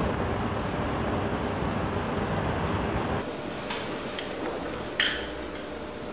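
A steady rumbling noise that cuts off about three seconds in. It gives way to quieter room tone with a few light clicks and one sharp click about five seconds in.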